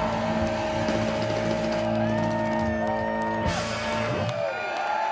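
Live blues band holding a final chord, with electric guitar and bass ringing steadily, the low end cutting off about four seconds in. Whoops from the crowd come in over it.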